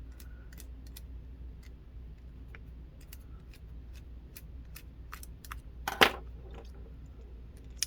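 Light scattered clicks and ticks of a small metal lock key with magnets inside being handled and opened up, with a louder clack about six seconds in and another near the end.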